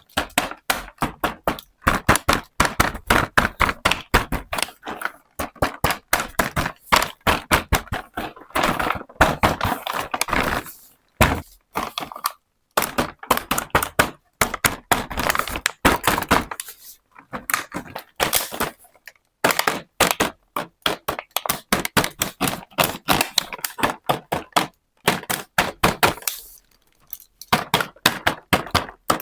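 Small plastic toy pieces of a miniature pizza set being handled, clicked together and tapped down on a hard surface: quick runs of sharp clicks and knocks, with a few short pauses.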